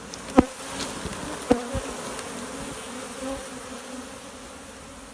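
Honeybee swarm buzzing, a steady hum of many bees. Two sharp knocks sound over it, one early and one about a second and a half in.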